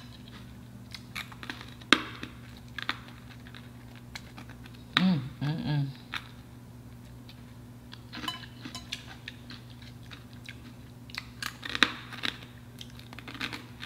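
Close-up mouth sounds of a battered corn dog being eaten: crisp crunching and chewing as the crust is bitten and nibbled off the wooden stick, in scattered irregular clicks. A brief hummed vocal sound comes about five seconds in.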